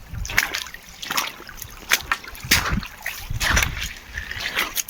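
A person wading through a shallow river, each step splashing and sloshing in the water about once a second.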